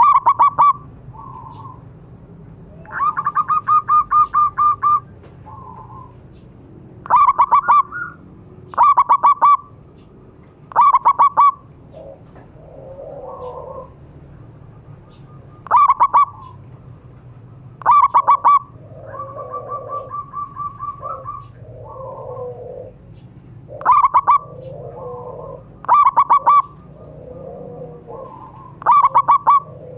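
Zebra dove (perkutut) calling: loud phrases of a few quick, clipped cooing notes, repeated every two to three seconds. A longer run of notes comes about three seconds in, and a softer run near the middle. Fainter, lower-pitched sounds fill the gaps between phrases.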